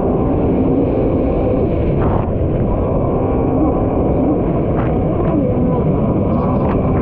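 Kawasaki SX-R 1500 stand-up jet ski's four-cylinder four-stroke engine running under way, its pitch wavering up and down, under a dense rush of wind and water spray on the onboard camera microphone.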